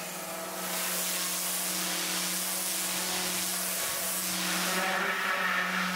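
Pressure washer blasting dirt and marine growth off a steel ship's hull: a steady hiss of the water jet, starting about half a second in, over a steady motor hum.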